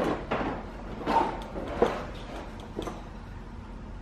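Plastic front bumper cover of a BMW E90 being worked loose and pulled forward off the car, giving a few separate plastic clicks and knocks, the sharpest a little under two seconds in.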